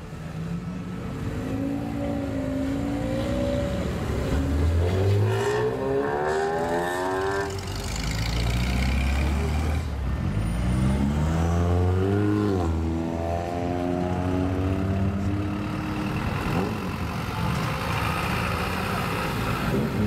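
Car engines revving and accelerating as lowered cars pull away one after another. The engine pitch climbs sharply about five seconds in, and again from about eight to twelve seconds before dropping off.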